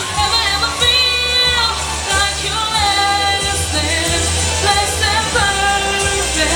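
Woman singing a pop ballad live over a backing track, with long held notes and a steady bass line underneath.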